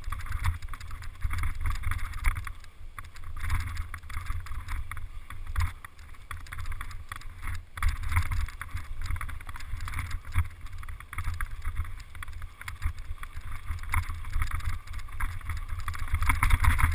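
Mountain bike riding fast down a rough grass and gravel trail: wind buffeting the microphone as a low rumble, over dense irregular rattling and clatter of the tyres and bike over the bumpy ground.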